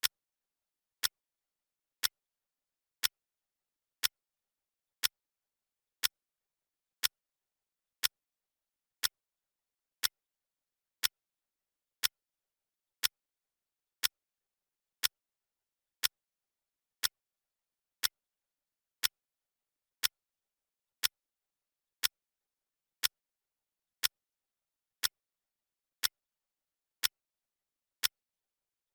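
Clock-ticking sound effect of a countdown timer: a sharp tick once every second, perfectly regular, with nothing in between.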